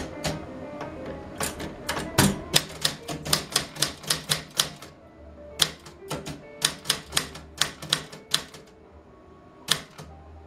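Keys of a manual portable typewriter struck in quick runs of about four strokes a second, with a short break about five seconds in and a single stroke near the end.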